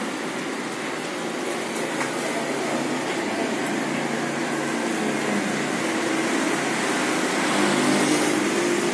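Steady rushing hiss of a gas burner under a wok, with food frying in the oil. It grows a little louder toward the end.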